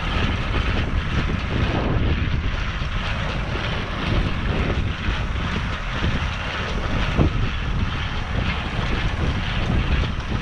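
Wind buffeting the microphone in a heavy, uneven rumble over a steady machine hum.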